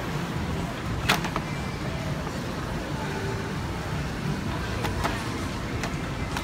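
Steady low rumble of city street traffic, with a few sharp clicks or taps; the loudest comes about a second in.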